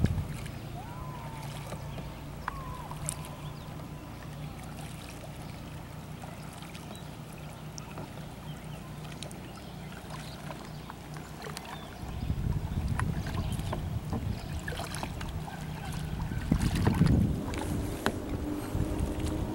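Kayak on a lake: small splashes and drips of water from paddling over a low steady hum. From about twelve seconds in, gusts of wind buffet the microphone, strongest near the end.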